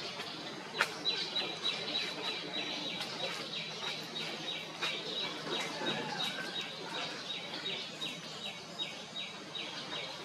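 A bird calling in a fast, even series of short down-slurred notes, about three a second, starting about a second in.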